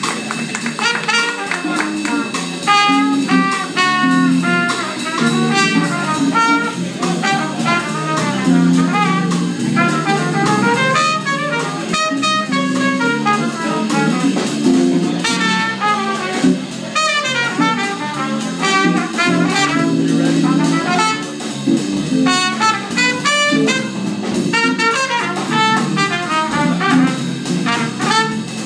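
Live jazz band: a trumpet plays quick, improvised-sounding lead lines over electric guitar, keyboard and drum kit.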